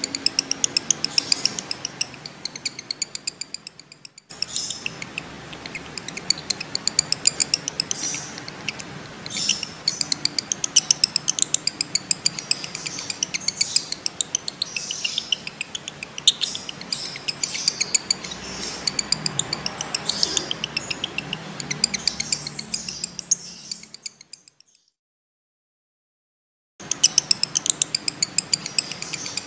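Male lovebird chattering in a long, rapid run of shrill chirps, many a second, the breeding-mood song used as a master recording to set other lovebirds off. The sound cuts out completely for about two seconds near the end, then the chirping starts again.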